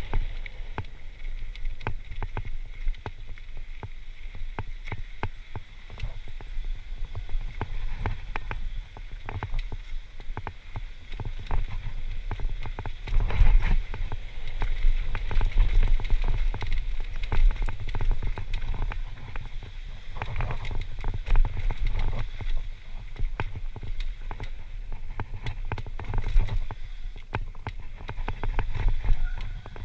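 Downhill mountain bike descending a dirt and gravel trail: tyres rolling and crunching over the ground, with frequent clicks and knocks from the bike rattling over bumps, over a constant low rumble of wind on the helmet camera's microphone. It grows louder for a few seconds about a third of the way in and again around two thirds.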